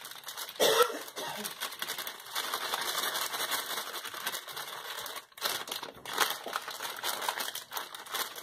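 Plastic bag of cake-mix powder crinkling and rustling as it is squeezed and shaken to empty the powder into a bowl, with a louder crackle just under a second in.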